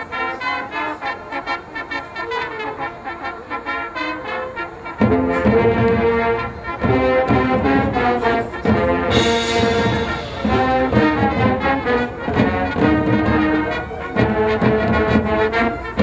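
High school marching band playing its field show: a lighter passage, then about five seconds in the full band comes in loud with sustained brass chords.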